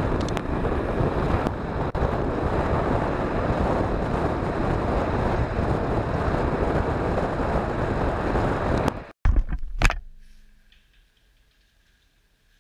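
Passenger train running at speed, with wind rushing over the microphone held at the window. The noise cuts off about nine seconds in, followed by two brief loud knocks, then near quiet.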